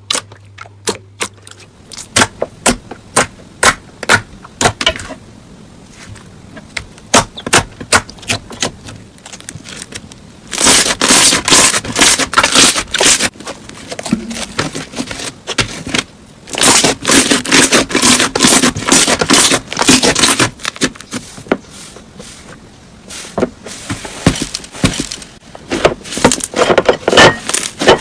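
Slime being pressed and poked by hand, giving sharp separate pops at first, then three long runs of dense crackling.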